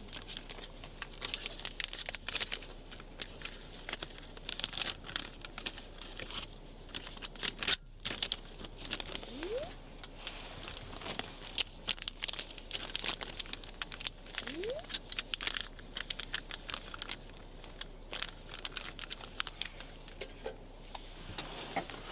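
Irregular rustling and crinkling handling noise, made of many small clicks, with two faint brief rising squeaks.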